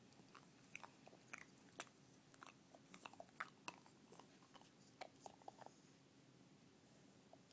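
English bulldog puppy chewing on a bottle cap: faint, irregular clicks and crunches of teeth on the cap, thinning out near the end.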